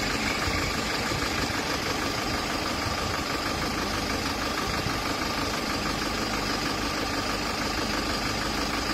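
Vehicle engine running steadily, with a steady faint high whine over it.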